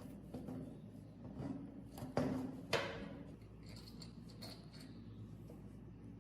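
Light clicks and scrapes of small objects being handled, with two sharper knocks about half a second apart a little over two seconds in.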